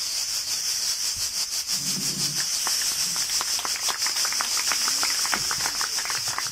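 Cicadas shrilling with a fast pulsing. From about two and a half seconds in, scattered hand claps from a small group build into light applause.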